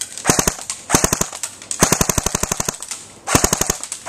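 Dboys MK16 (SCAR-L) airsoft electric rifle firing full-auto in short bursts, about 14 shots a second, with one longer burst of about a second in the middle. The rate of fire is really high, about 800 to 850 rounds per minute.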